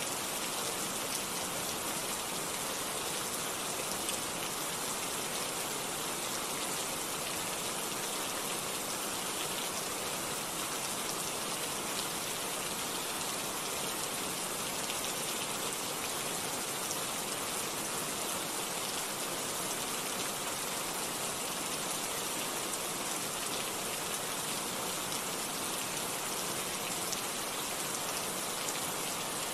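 Steady rain falling, an even hiss of many drops that neither builds nor eases.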